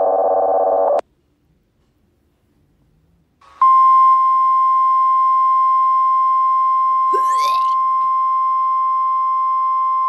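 Mock emergency alert alarm: a harsh buzzing tone for about a second, a pause of a couple of seconds, then a long steady single-pitch alert tone. A brief rising swoop sounds over the tone about seven seconds in.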